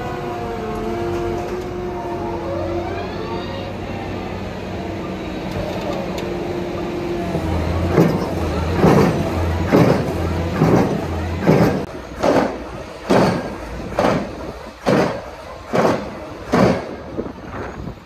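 Heavy construction machinery running with a steady whine that wavers and glides in pitch. About halfway through, a series of about eleven evenly spaced heavy knocks begins, a little under one a second, and they weaken near the end.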